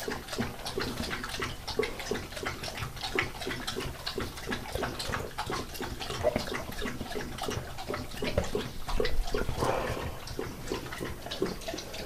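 A dog lapping water from a stainless-steel bowl, a quick even rhythm of about three to four laps a second, with a louder, rougher stretch about nine seconds in.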